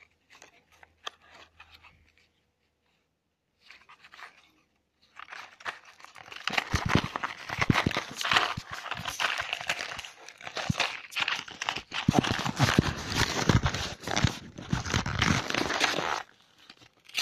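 Cardboard Smarties box being torn open and crumpled by hand: faint handling at first, then about five seconds in, a dense crackling and ripping with many sharp snaps that goes on for about ten seconds before stopping.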